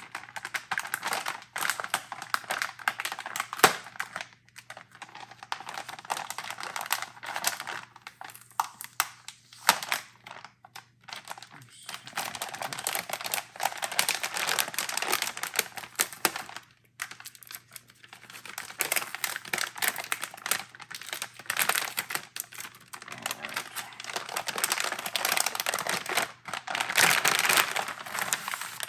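Plastic anti-static bag crinkling and rustling as a graphics card is handled and unwrapped from it, in stretches of a few seconds with short pauses and a few sharp clicks.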